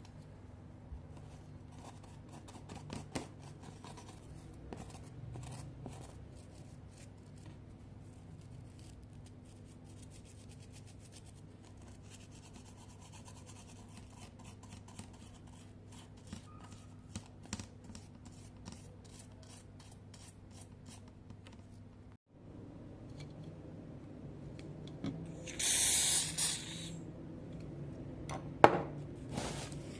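Small plastic clicks and rubbing from handwork on a laptop keyboard, over a low steady hum. Near the end comes a loud hiss of spray lasting about a second and a half, then a single sharp click.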